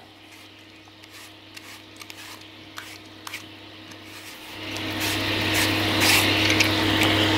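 Faint scrapes of a hand peeler on an apple over a low steady hum. About four and a half seconds in, a steady hiss rises and holds: butter and brown sugar beginning to sizzle in a frying pan for a light caramel.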